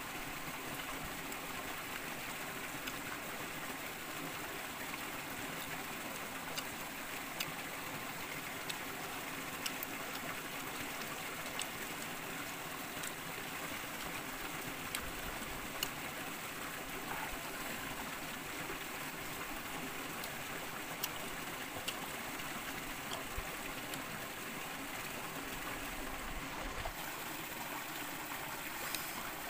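A small stream running over rocks: a steady rush of water, with a few faint clicks scattered through it.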